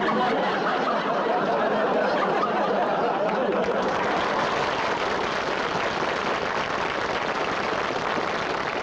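Theatre audience applauding, a dense steady clapping that breaks out suddenly.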